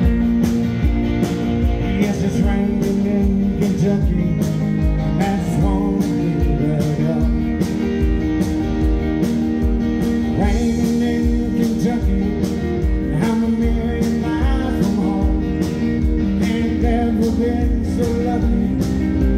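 Live country-rock band playing in a large hall: electric guitars over a steady drum beat of about two hits a second.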